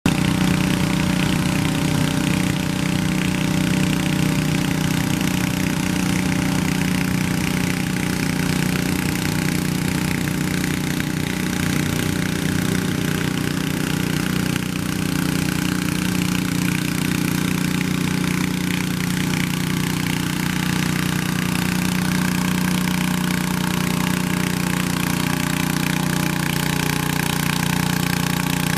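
Garden tractor's engine running steadily at a constant pitch under load as it drags a weight sled down a dirt pulling track.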